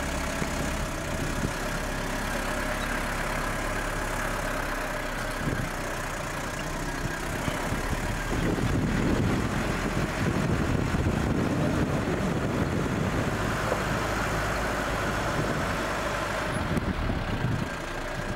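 Vehicle engine running steadily while driving over a dry, cracked lake bed, with a continuous rush of tyre and ground noise; the sound swells somewhat in the middle.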